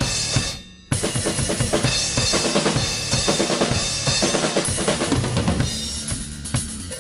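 Acoustic drum kit with Sabian cymbals played in a rock pattern. A single hit rings and fades out, then from about a second in a fast, dense beat of bass drum, snare and cymbals starts, thinning a little near the end.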